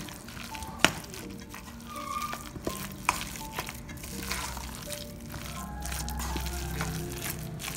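Background music over the wet, squelchy sound of thick vegetable fritter batter being stirred in a stainless steel bowl. A few sharp clinks of the spoon against the bowl stand out, the clearest about a second in and about three seconds in.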